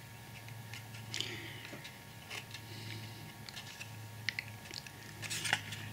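Faint rustling and a few light clicks of thin card being handled as small window frames are pressed into a brick-papered card wall, over a steady low hum.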